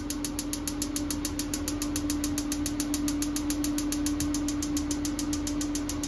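RV propane oven's electronic spark igniter clicking rapidly and evenly, several sparks a second, while the ignite button is held to light the oven pilot. A steady hum runs underneath.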